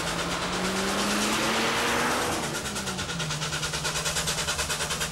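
Narrow-gauge steam locomotive chuffing steadily at about three to four beats a second as it hauls its train. A road vehicle passes about two seconds in, its engine note rising and then dropping in pitch.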